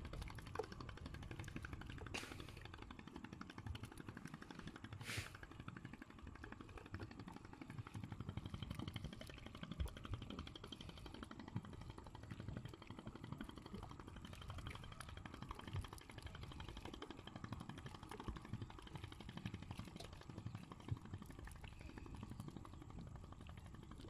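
Faint wet rustling and soft ticking of small freshly caught fish being stirred by hand in a plastic crate, with a couple of sharper clicks early on.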